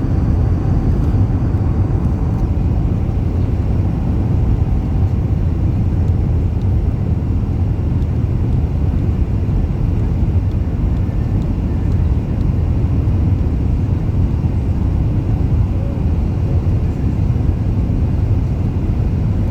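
Steady low rumble from an Airbus A380 airliner, unchanging throughout.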